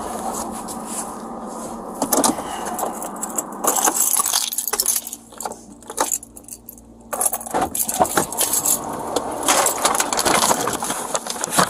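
Handling noise on a police body-worn camera: rustling and scraping with scattered clicks and knocks, with a quieter stretch of about two seconds near the middle.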